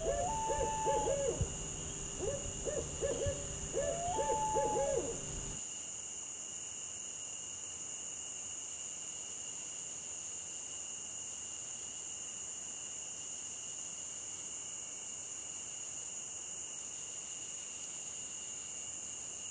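An owl hooting: quick runs of short hoots, repeated several times over the first five seconds. A steady high-pitched whine runs underneath and carries on after the hooting stops.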